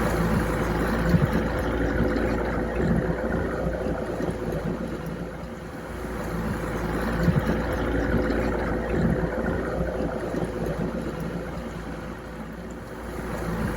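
Boat motor running steadily, with a constant hum and a strong low rumble that swells and dips.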